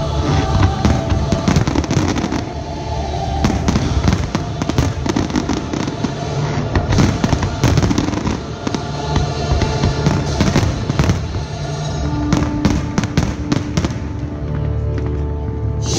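Aerial fireworks shells bursting in rapid succession: many bangs one after another, with music playing along.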